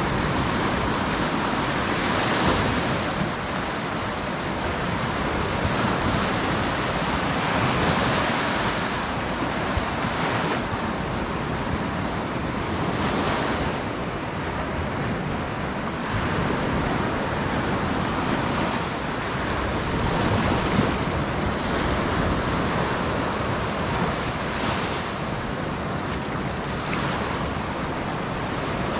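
Sea waves washing onto a beach, the surf noise surging and easing every few seconds.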